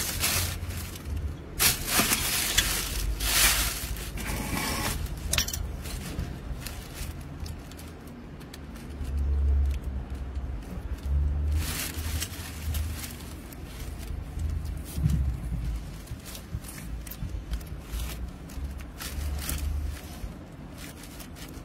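Hands working at a water pump's terminal box and electrical cable: irregular scrapes, rustles and small clicks of plastic, metal and cable, busiest in the first few seconds and again around the middle, over a low rumble at times.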